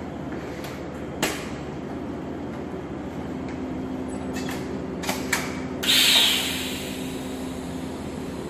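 Steady hum of welding equipment running in a welding workshop. A few sharp clicks sound, and about six seconds in a brief loud hiss fades away over about a second.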